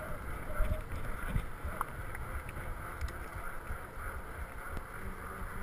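Wind buffeting an action camera's microphone on a mountain bike rolling along a paved road, a steady rumble with a few faint clicks from the bike.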